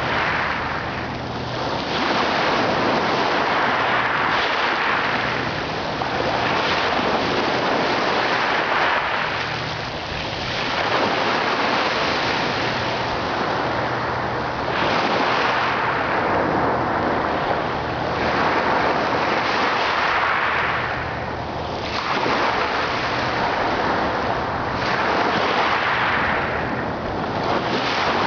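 Ocean waves breaking and washing in a steady rush that swells and eases roughly every four seconds.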